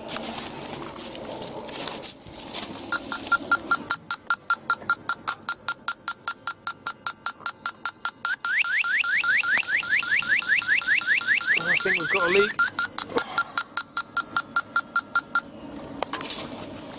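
Electronic refrigerant leak detector beeping rapidly, about four beeps a second, as it picks up refrigerant leaking at a valve on the chiller's pipework. For about four seconds in the middle it switches to louder, faster rising chirps, the detector's strong-leak alarm, then drops back to plain beeps and stops near the end.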